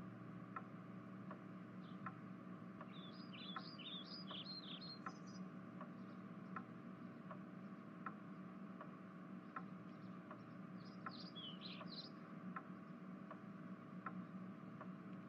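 Faint background ambience: birds chirping in two short bursts over a steady low hum, with a soft regular tick about every 0.7 seconds.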